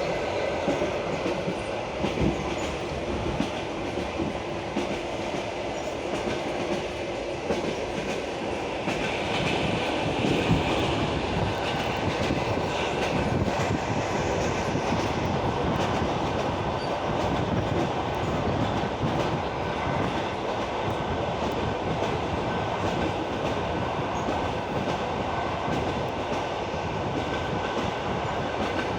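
Passenger train wheels clacking over rail joints at running speed, over a steady rolling rumble, heard from a carriage window.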